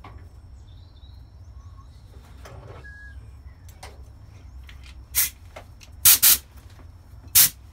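Short blasts of compressed air from an air blow gun, fired into a brake caliper's fluid port to force out its stuck piston. There is one blast about five seconds in, a quick double blast a second later, and one more near the end.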